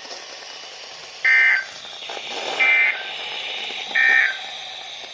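NOAA Weather Radio EAS (SAME) data tones: three short, identical bursts of digital warbling tone, about one and a half seconds apart, over receiver hiss. The bursts are the short end-of-message signal that closes the tornado warning broadcast.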